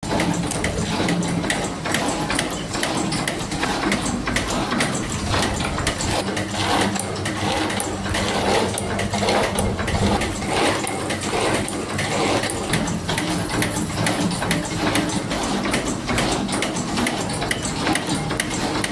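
Spring-making machinery running, with a rapid, continuous clicking and clatter over a steady hum.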